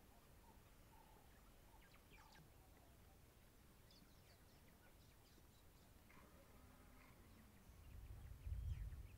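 Faint birds chirping and calling in open grassland, short high chirps scattered throughout. Near the end a louder, low rumble comes in.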